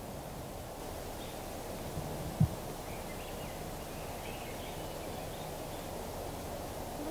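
Evening forest ambience: a steady low rumble of distant passing traffic, with faint high bird chirps scattered through the first few seconds. One short, sharp low thump about two and a half seconds in is the loudest sound.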